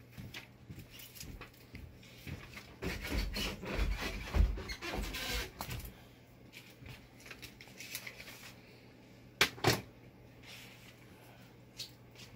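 Hand handling noise as a downrigger's steel cable and plastic terminator are worked by hand: scattered small clicks and rubbing, busiest a few seconds in, with two sharp clicks a little after the middle. A faint steady hum sits underneath.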